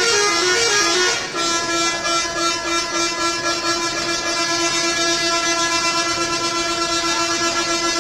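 Indonesian bus 'telolet' multi-tone horn playing a quick run of stepping notes, then, from about a second in, one long held chord of several tones.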